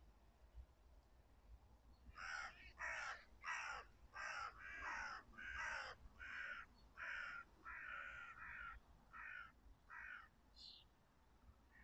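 A run of about fourteen animal calls, roughly two a second, starting about two seconds in; each call drops in pitch, and they grow fainter toward the end.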